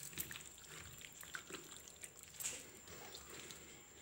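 Faint, wet squelching of a hand kneading chicken pieces through a thick yogurt and spice marinade in a steel bowl.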